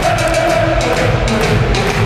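Music with drums, loud and steady.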